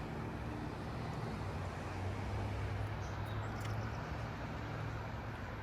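Steady wash of ocean surf and wind with a low engine hum under it, fading about four seconds in.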